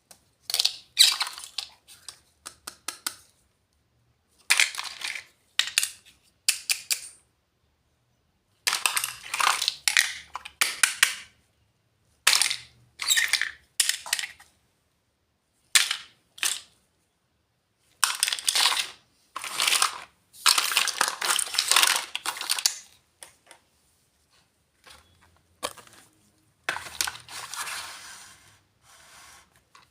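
Plastic packaging of miniature doll house furniture being unwrapped and handled: crinkling and crackling in short bursts with sharp snaps, stopping and starting many times, with the longest stretch about 20 to 23 seconds in.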